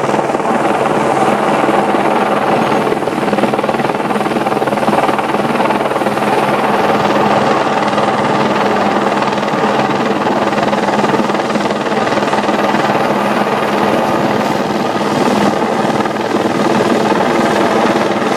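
Helicopter flying overhead, its rotor and engine making a loud, steady noise.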